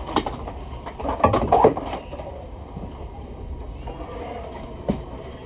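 Inside a double-decker bus: the steady low rumble of the bus running, with a few brief loud sounds in the first two seconds, the loudest about a second and a half in, and a short sharp knock near the end.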